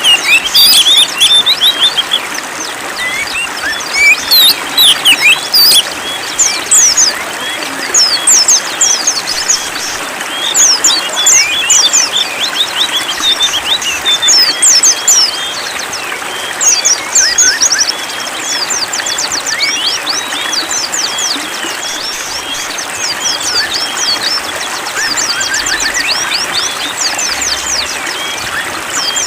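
Small birds chirping and singing in rapid high trills over a steady rush of running water; the loudest bouts of calling come in the first half, giving way to quicker, softer repeated notes.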